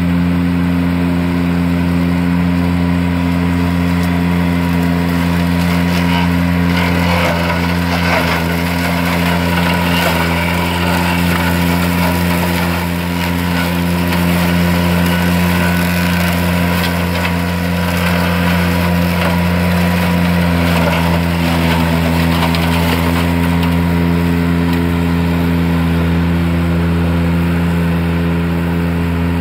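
Ventrac compact tractor's engine running steadily with its front rough-cut mower deck spinning, chopping through multiflora rose brush. Crackling and snapping of cut stems through the middle stretch, heaviest from about six to twenty seconds in.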